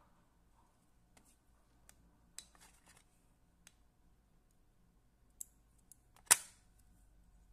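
Small fly-tying scissors snipping at a deer-hair hopper fly: a handful of faint, scattered sharp clicks, with one much louder snap about six seconds in.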